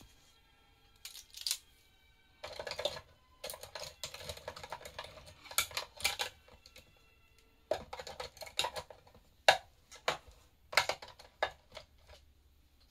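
Pens, pencils and a highlighter clattering and clicking against each other and against a pen holder as they are pushed in and shifted about, in irregular bursts of rattling clicks with short pauses between.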